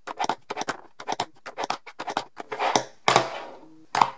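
A fingerboard with soft urethane wheels being popped, flipped and landed on a desktop during frontside kickflip attempts: a quick run of sharp clacks and taps, with a brief stretch of rolling about three seconds in.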